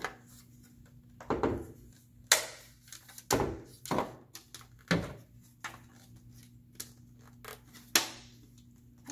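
Hard plastic toy-castle floor pieces being handled and snapped together: a run of separate knocks and clicks, the sharpest about two seconds in and near the end.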